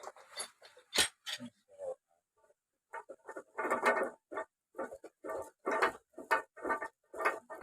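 Mechanical clatter: a sharp knock about a second in, then a run of short, irregular clanks and rattles, two or three a second.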